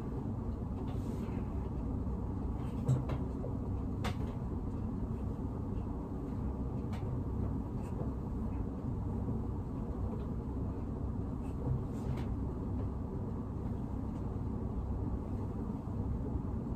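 Steady low background rumble with no clear pitch, with a few faint clicks or taps scattered through it.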